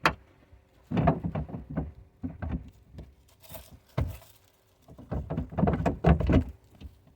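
Handling noise as a taillight assembly and its wiring are worked into the car body: irregular plastic knocks and rustles, with a sharp click near the start and another about four seconds in.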